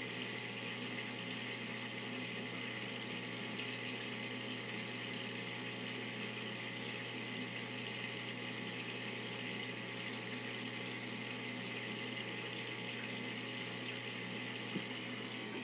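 Steady rush of aquarium water and bubbling from the tank's air lift, over a constant low pump hum.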